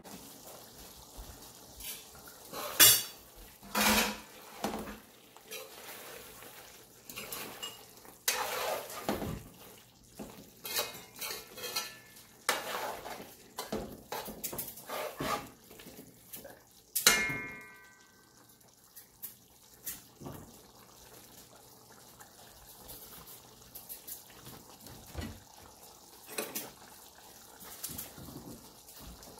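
A metal spoon stirring chicken curry in a large metal pot, scraping and clinking against the pot's sides with scattered knocks. A strike about seventeen seconds in rings briefly.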